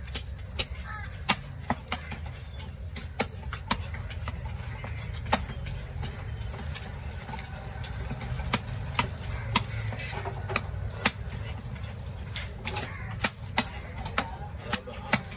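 A heavy knife chopping fish on a wooden log block: sharp, irregular chops, sometimes two or three in quick succession, over a steady low background hum.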